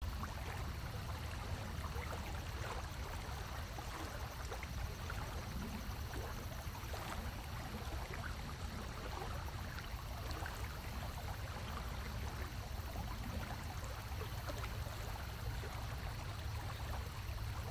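Steady rushing and babbling of running stream water, even throughout with a low rumble underneath.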